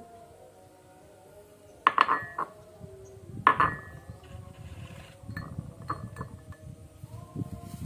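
Two sharp glassy clinks about a second and a half apart, each ringing briefly, followed by softer knocks and rustling.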